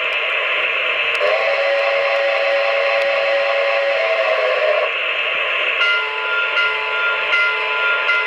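Sound unit of a model Frisco steam locomotive playing through its small speaker. A steady hiss runs throughout. Its whistle blows for about four seconds starting about a second in, then its bell rings near the end.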